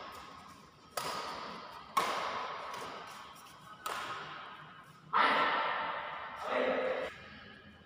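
Badminton rackets hitting a shuttlecock: three sharp strikes about a second apart, each echoing in a large hall. About five seconds in, a louder, longer sound follows for about two seconds.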